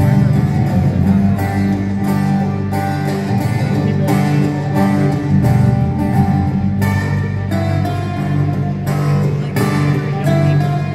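Live acoustic country band playing, with strummed acoustic guitars in a steady rhythm.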